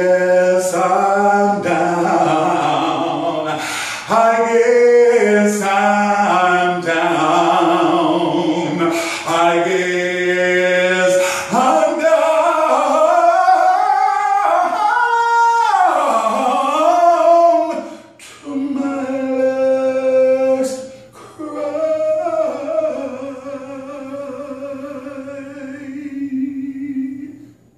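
A man singing a slow soul ballad with no accompaniment, sliding and running through sustained notes. Near the end he holds one long note that fades out.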